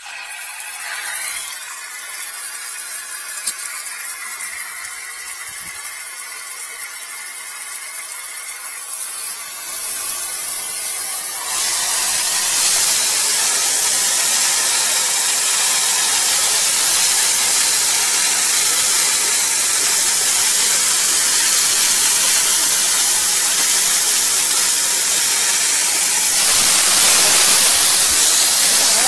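Pressurised fire-protection piping venting: a loud steady hiss of escaping pressure with a faint whistle. It grows stronger and fuller about ten seconds in, and again a second later.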